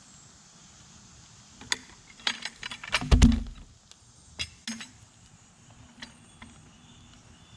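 A string of sharp clinks and knocks, like metal gear being handled, with one heavier thump about three seconds in and a few scattered clicks after.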